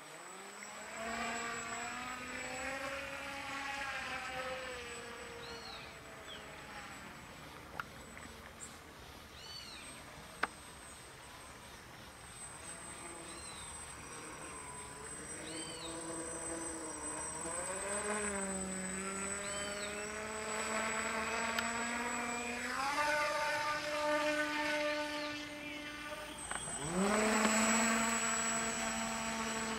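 Radio-control model airplane's motor and propeller droning in flight. The pitch rises and falls as the throttle changes and the plane passes, dips sharply then climbs again near the end.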